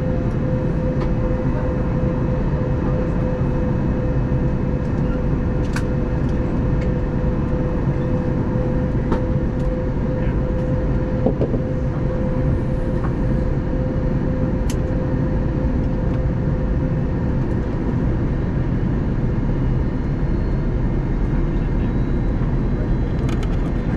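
Steady cabin noise inside an Airbus A321neo airliner descending on approach: the low drone of engines and airflow, with a steady hum that fades away about two-thirds of the way through and a few faint clicks.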